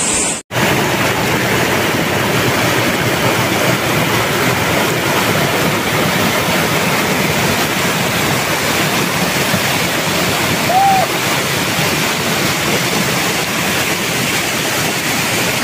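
Muddy river water rushing over a small rock cascade, a loud steady roar; the river is running high and fast after overnight rain. A brief whistle-like tone rises and falls once about two-thirds of the way through.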